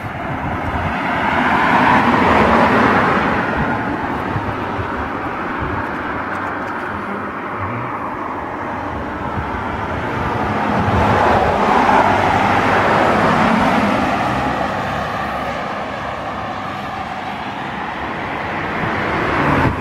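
Road vehicle noise, a steady hum of engines and tyres that swells loudest about two seconds in and again around twelve seconds in, as vehicles pass.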